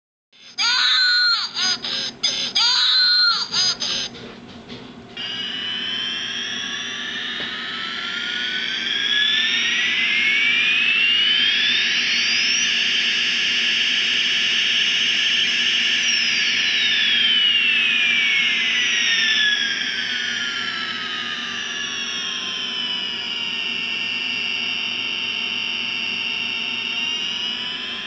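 Electronic jet-airplane sound effect from the battery sound module in the Always Learning 'Here Comes Dinner' weaning spoon's airplane attachment. After a few seconds of a choppy, different electronic sound, a whine rises slowly in pitch, holds at the top for a few seconds, then slowly falls.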